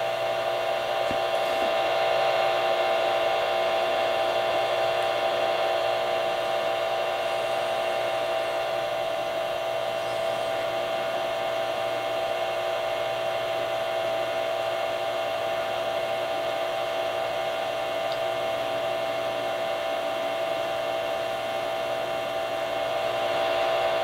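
Steady electronic hum from a Realistic FM cordless monitor receiver, one strong mid-pitched tone with a stack of fainter higher tones, unchanging throughout.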